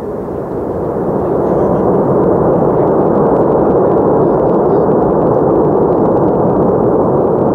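Airbus A330-300's Rolls-Royce Trent 700 engines roaring in reverse thrust on the landing roll: a loud rushing roar that builds over the first second or two, then holds steady.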